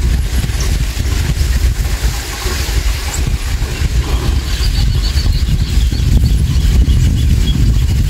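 Wind buffeting the microphone, a loud, steady low rumble. Faint high bird chirps come through about halfway in.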